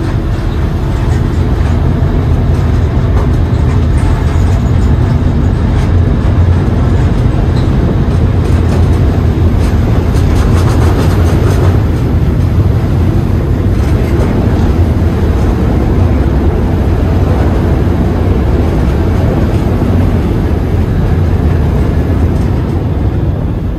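Ferry's engines running with a steady, loud low rumble, heard from on board.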